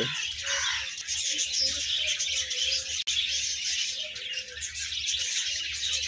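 A flock of budgerigars chattering, a dense continuous twitter of many small chirps.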